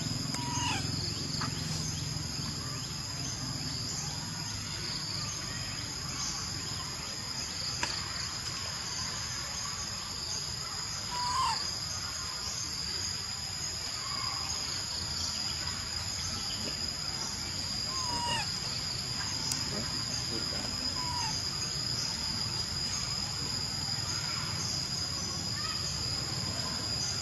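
Insects shrilling in a steady, unbroken high drone, with a few brief chirps heard now and then.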